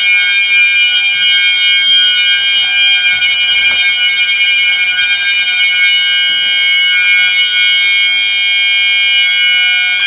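A pair of System Sensor MASS mass-notification horns sounding in alarm after the smoke detector has tripped. They give a loud, steady, unbroken tone, with no pulsing pattern.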